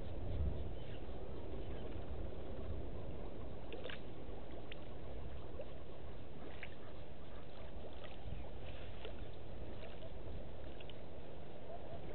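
Steady outdoor wind rushing over the microphone, with a few faint short high chirps scattered through it.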